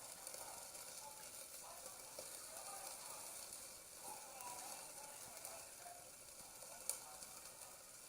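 Newspaper burning as fuel: a faint, steady hiss with scattered small crackles, and one sharper pop about seven seconds in.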